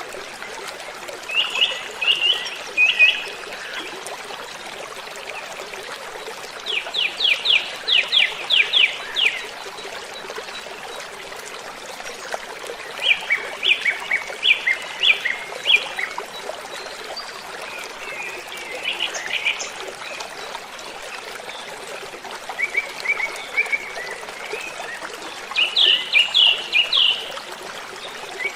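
Steady rush of falling water from a waterfall, with birdsong over it: about six short phrases of rapid repeated chirps, spaced a few seconds apart.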